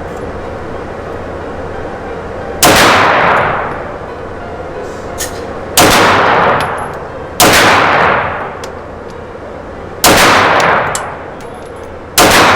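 Five single 9mm pistol shots in slow, deliberate fire, each followed by a second of echo off the walls of an indoor range. The third shot comes sooner after the second than the rest, and is the one the shooter pulled into a flyer and blames on the pistol's very light, overly sensitive trigger.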